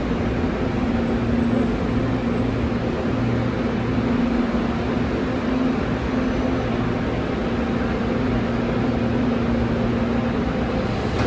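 Seoul Subway Line 1 electric train pulling into the platform and braking to a stop behind the platform screen doors: a steady rumble with a low hum that dies away near the end as the train halts.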